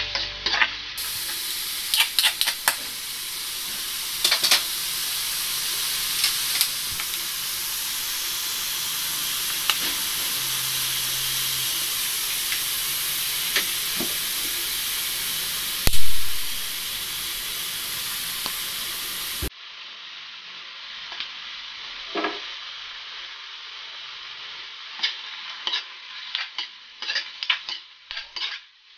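Diced meat sizzling as it fries in oil in a wok, with a spatula scraping and knocking against the pan as it is stirred. There is one loud thud a little past the middle. After that the sizzle is quieter and the spatula's clicks and taps stand out.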